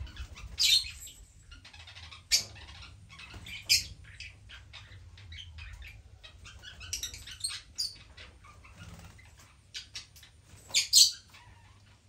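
Lovebirds in an aviary giving short, high chirps every second or two, with two of the loudest close together near the end.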